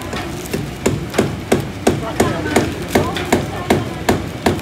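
Rhythmic knocking of a kitchen utensil, about three sharp strikes a second, each strike short and evenly spaced.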